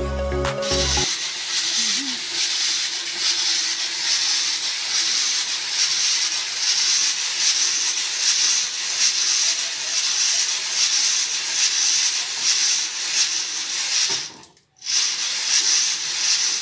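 Coffee beans tumbling and rustling inside a hand-cranked drum roaster turned over a wood fire, a steady hiss that swells slightly with each turn of the crank. It cuts out briefly near the end.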